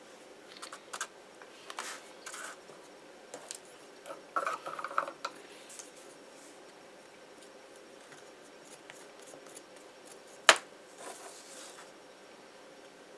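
Handling noise from a paper-wrapped paper mache dog armature: light clicks and paper crinkling over the first five seconds, then one sharp click about ten and a half seconds in, followed by a little more crinkling.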